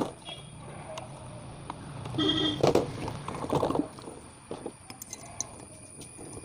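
Hand work on a chainsaw's metal engine parts: clicks, knocks and scrapes, with a short squeak about two seconds in and the busiest handling up to about four seconds.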